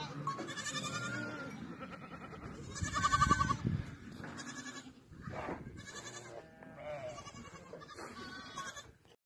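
A mixed flock of sheep and goats bleating, several wavering calls overlapping one another, the loudest about three seconds in. The sound cuts off suddenly just before the end.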